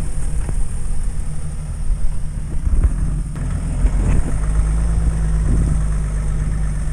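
Off-road 4x4's engine running at low revs as the truck crawls through a deep rut on mud-terrain tyres, with a few knocks from the chassis and tyres about halfway through.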